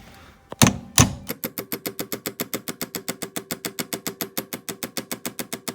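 Hammer tapping a pin back into the short shifter assembly. Two hard blows, then a fast, even run of light ringing metal taps, about nine a second.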